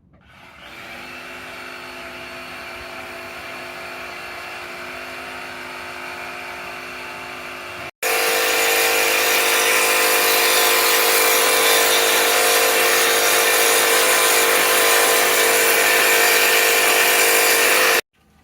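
A power tool running steadily in two abrupt stretches, the second louder, starting about 8 seconds in.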